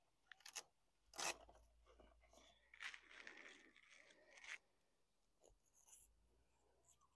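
Faint, scattered rustling and scraping with a few light clicks: hands and pliers handling a small hooked fish to work the hook out. The longest scratchy rub comes about three seconds in.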